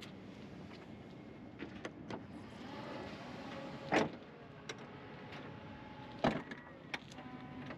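Power tailgate of a BMW X7 closing: electric motors whirring, with a loud thud about four seconds in and another a little past six seconds as the split tailgate sections shut and latch.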